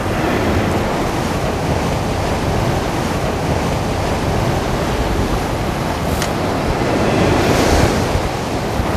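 Rough sea surging and breaking against a rocky shore, with strong wind buffeting the microphone; the surge swells louder about seven seconds in.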